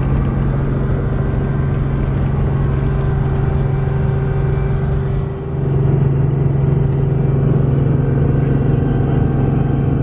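Helicopter running: a loud, steady engine-and-rotor drone with a strong low hum. It briefly dips about five and a half seconds in, then carries on slightly louder.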